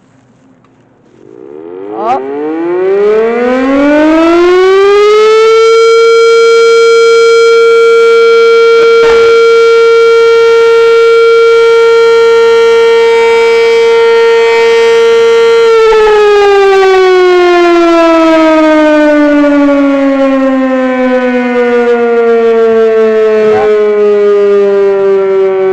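Darley Champion motor-driven outdoor warning siren sounding its noon signal. About two seconds in it winds up to a steady high tone, holds it for about ten seconds, then winds down, the pitch still falling slowly near the end.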